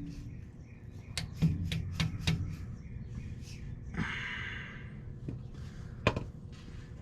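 A 2-pound dead blow hammer tapping a speed sensor down into its bore in the transmission case, each tap with a maraca-like rattle. Four quick taps come a little over a second in, a brief rustle follows around four seconds, and a single tap comes near the end.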